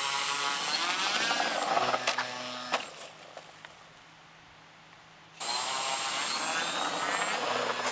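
Electric motor and propeller of a foam RC plane spinning up: a rising whine over a rush of prop wash, with a couple of knocks before it drops away about three seconds in. After a quieter stretch it comes on again suddenly about five and a half seconds in.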